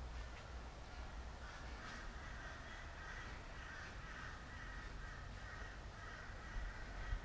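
Crows cawing over and over, faint, with a short low bump just before the end.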